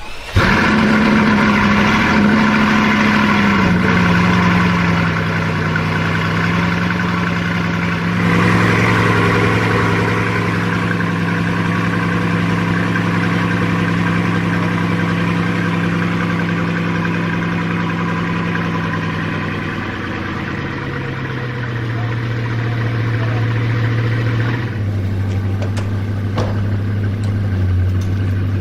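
Bugatti Chiron's quad-turbo W16 engine starting up and settling into a fast idle. It gets louder and brighter about eight seconds in, and the idle steps down in pitch around twenty and again around twenty-five seconds in.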